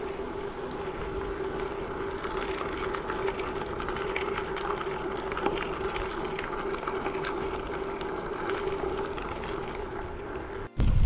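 Bicycle rolling along a packed dirt trail: steady tyre noise on the surface with a steady low hum and a light patter of small grit. Near the end it cuts out for an instant and loud wind buffeting on the microphone takes over.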